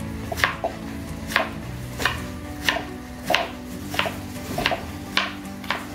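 Chef's knife chopping diced potato on a cutting board: about ten sharp knocks of the blade on the board at an even pace, about one and a half a second.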